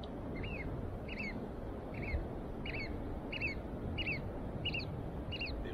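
An oystercatcher calling: a run of about eight short, sharp piping calls, evenly spaced at a bit more than one a second.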